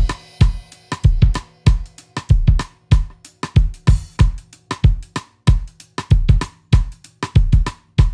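Background music with a steady drum beat: kick drum, snare and hi-hat.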